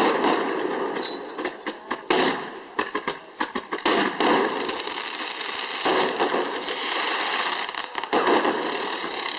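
Fireworks going off: a rapid string of sharp cracks and pops, with several loud hissing, crackling bursts, the loudest right at the start and about two, four and six seconds in.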